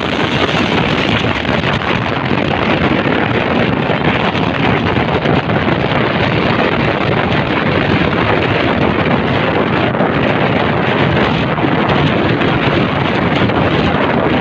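Steady wind noise on the microphone of a moving Honda XRM 125 Fi motorcycle, with the bike's running and road noise underneath.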